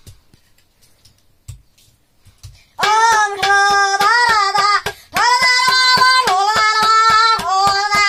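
A few soft taps, then about three seconds in a child starts singing a melody in a high voice while beating a steady rhythm on a steel plate with his hand, about four strikes a second.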